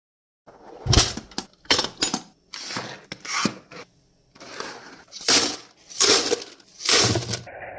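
Loose 9mm cartridges being poured into a metal .50-cal ammo can, clattering and clinking in about ten separate pours.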